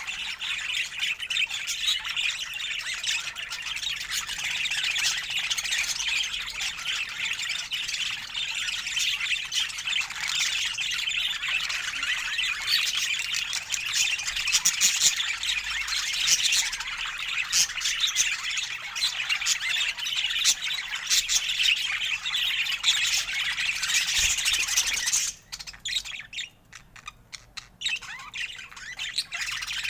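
A flock of budgerigars chattering nonstop, a dense mix of quick chirps and squawks. The chatter thins out abruptly about four seconds before the end, then picks up again.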